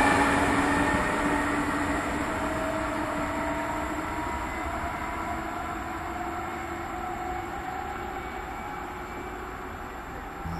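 E464 electric locomotive and its train running away down the line. The rumble of the wheels on the rails fades steadily, under a traction-motor whine that slowly rises in pitch.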